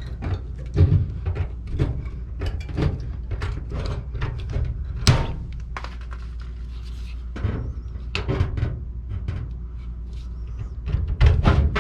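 Irregular knocks, clicks and scrapes of hand work on sheet-metal ductwork, with a sharp click about five seconds in and a cluster of knocks near the end, over a steady low hum.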